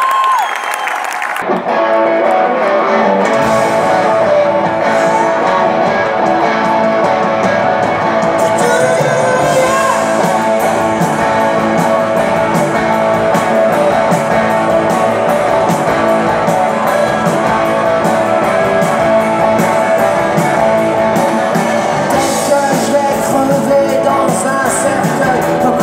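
Live rock band playing, heard from the crowd: electric guitars and drums with singing. The full band comes in about a second and a half in, and the drums fill out the low end a couple of seconds later.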